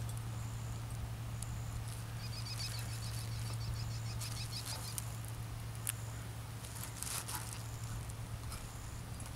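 Field ambience: a faint high insect chirp repeating steadily, with a quick high trill about two seconds in, over a steady low hum. A few brief plastic crinkles come later, as the plastic sheeting on the pole is handled.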